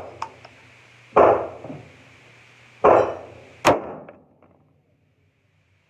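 Mini Draco AK pistol in 7.62×39 firing three shots, each with an echoing tail: two about a second and a half apart, then a third close behind.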